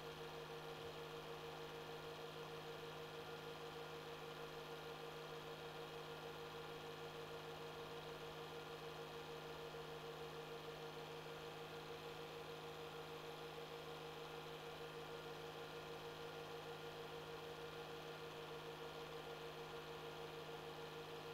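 Steady hum with a constant higher tone and hiss underneath, unchanging throughout, with no speech or music.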